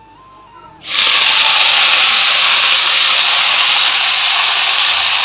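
Chopped onion, ridge gourd and potato hitting hot oil in a kadhai and sizzling: a sudden loud hiss that starts about a second in and holds steady.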